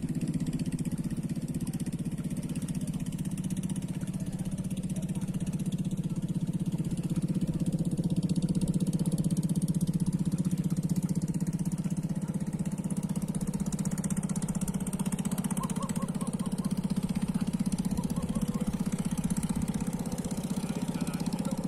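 Small gasoline engine on a narrow wooden boat running steadily, driving the boat along.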